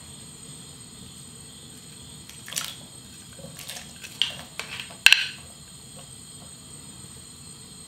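Sliced onions scraped off a plate with a wooden spoon and dropped into a pot of water: a string of knocks, clatters and small splashes from about two and a half seconds in, the loudest a little after five seconds.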